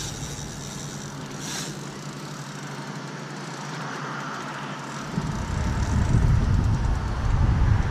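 Wind rumbling on an outdoor microphone over a steady hiss of moving air and water. The rumble drops away for a few seconds, then comes back stronger about five seconds in.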